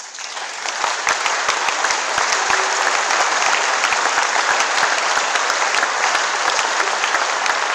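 Audience applauding: many people clapping, starting abruptly, building over the first second and then holding steady.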